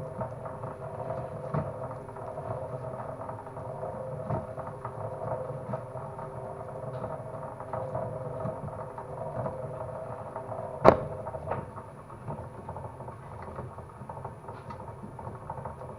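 Homemade chain-driven, motor-powered cable stripping machine running steadily while stripping 1.5 mm installation cable: a steady motor hum with held tones, scattered light clicks, and one sharp snap about eleven seconds in.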